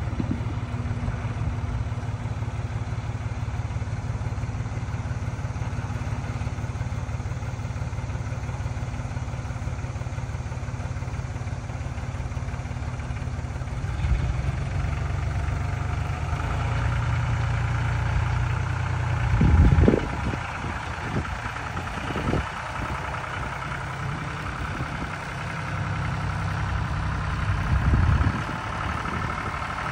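John Deere 5300 tractor's three-cylinder diesel engine running steadily as the tractor drives. Its note grows louder a little past halfway, and a few short low thumps come near two-thirds of the way through and again near the end.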